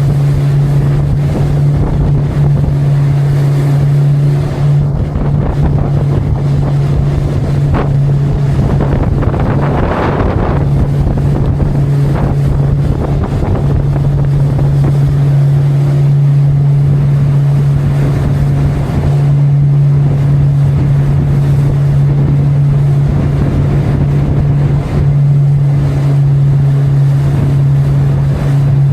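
Motorboat engine running at a steady speed, a constant low drone, with wind and water rushing past; the rush swells briefly about ten seconds in.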